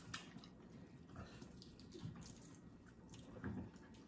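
Faint wet eating sounds of a Cajun seafood boil being eaten by gloved hands: scattered small clicks, crackles and smacks of shells being pulled apart and food chewed, with a soft knock about three and a half seconds in.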